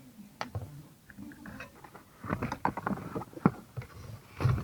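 Sharp clicks and knocks of parts being worked loose by hand as the steering column switches are taken off a Toyota Corolla, sparse at first and coming thick and fast from about two seconds in.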